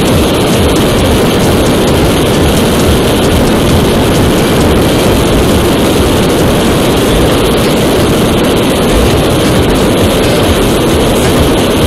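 Loud, steady wind rush over the microphone of a Yamaha Tracer motorcycle cruising in sixth gear at about 120 km/h, with the bike's running and road noise mixed in.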